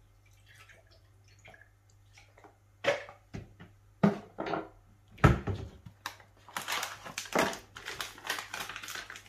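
Kitchen utensils and containers being handled: a few separate knocks and clicks, the loudest about five seconds in, then a rapid run of clattering from about two-thirds of the way through.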